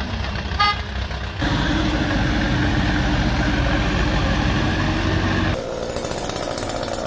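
A heavy vehicle engine running, with a short horn toot about half a second in. After about a second and a half the engine sound becomes louder and steadier. Near the end it cuts abruptly to a different, hissier machine sound.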